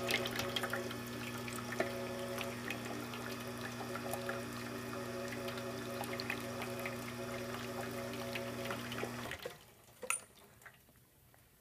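Rocket R58 dual-boiler espresso machine's rotary pump running, pushing water through the machine with a steady humming tone and a watery hiss; it cuts off about nine seconds in.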